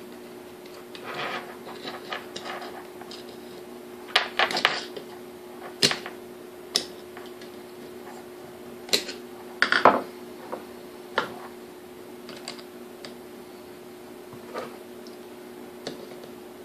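Screwdriver tip clicking and scraping against the metal brush holder and cotter pin on a small electric motor's end plate: irregular sharp metal taps, some in quick little clusters, over a steady low hum.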